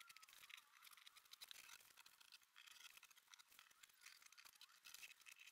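Faint crackling and rustling of masking tape being peeled off a painted wall and bunched up in the hand.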